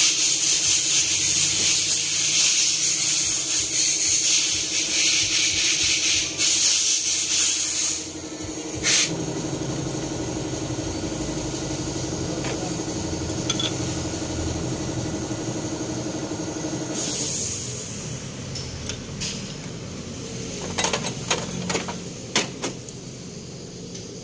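A steady hiss with a low steady hum under it. The hiss is loud for the first eight seconds, drops away, and comes back briefly about seventeen seconds in. A few clinks of hand tools against the engine come near the end.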